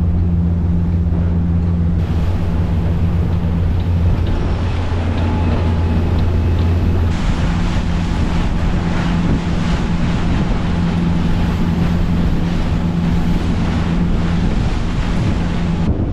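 Motor boat's engines running steadily at speed, a smooth low drone, with wind buffeting the microphone and water rushing past the hull. About seven seconds in, the deepest part of the drone drops away and the wind and water noise grows.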